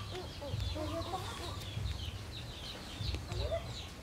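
Chickens: low clucking under a steady run of short, high, falling peeps, about three a second.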